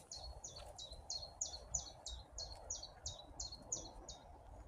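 A small songbird calling, a quick run of about a dozen high notes, each sliding downward, repeated about three times a second and stopping shortly before the end.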